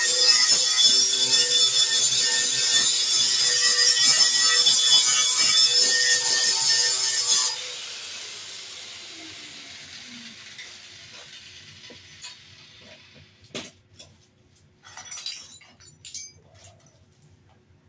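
Angle grinder grinding steel with a loud, steady hiss. About seven and a half seconds in it cuts off and the disc spins down in a falling whine over about three seconds. A few faint knocks follow.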